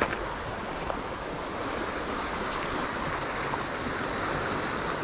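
Shallow mountain river rushing over a stony bed and a small riffle, a steady, even rush of water.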